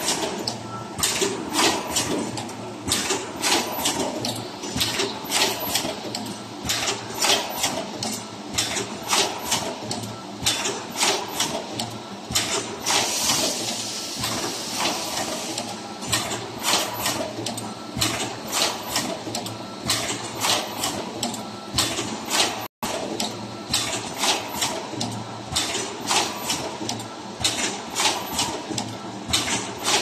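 Automatic double-end wire crimping and shrink-tube inserting machine running: a rapid, uneven train of clicks and knocks from its presses and actuators, about two or three a second. A hiss rises for about two seconds near the middle.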